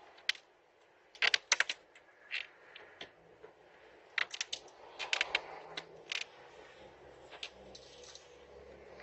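Sharp metallic clicks and knocks in quick clusters, about a second in and again from about four to six seconds in, from a pry tool being worked against a house door.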